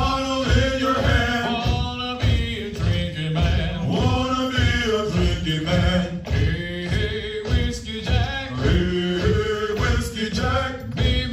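Male voices chanting a Marine Corps hiking cadence over a steady, evenly repeating low beat.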